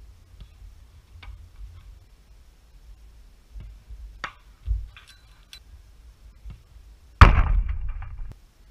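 A football hitting the goal net right beside the net-mounted camera: a sudden loud thud followed by about a second of rattling that dies away. Fainter knocks and a low thump come before it, about halfway through.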